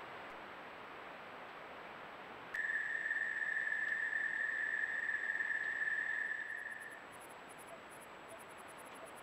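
A cricket's continuous, even-pitched high trill starts abruptly about two and a half seconds in and fades out around seven seconds, over steady background hiss. Faint rapid high-pitched ticking comes in near the end.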